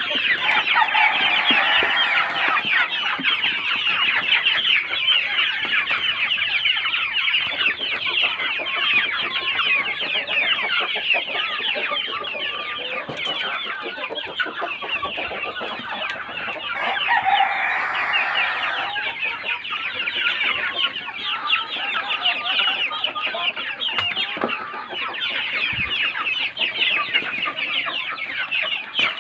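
A flock of KUB chickens clucking and calling over one another without pause, with one longer, louder call a little past the middle.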